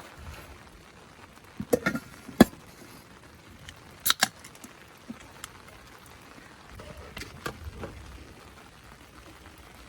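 A few sharp clicks and clinks of objects being handled, in short clusters about two seconds in, around four seconds in and again near eight seconds, over a faint steady hiss.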